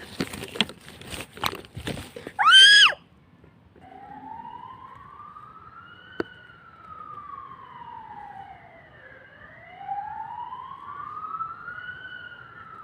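A few knocks and a short, loud, high cry, then a siren wailing slowly up and down, about one rise and fall every five seconds.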